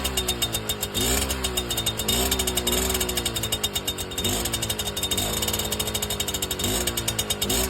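Piaggio Ciao moped's small single-cylinder two-stroke engine running on its old exhaust, the throttle blipped over and over so the pitch jumps up quickly and sags back down, roughly once a second, with a short steadier stretch just past the middle.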